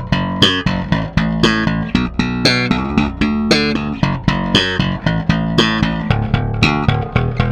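Dyna KUSABI-II five-string electric bass, with a swamp ash body and two single-coil pickups, playing a quick rhythmic line of plucked notes with bright, sharp attacks. The playing starts abruptly.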